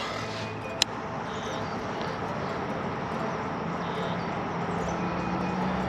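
A single sharp click a little under a second in, then a steady outdoor hiss, with a low steady hum of a distant engine coming in past the middle.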